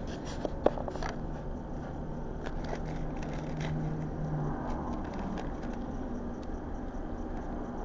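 Steady low rumble of passing road traffic and room hum, with a few light crackles and clicks near the start and sparse soft ticks later as curly fries are picked from a paper-lined basket.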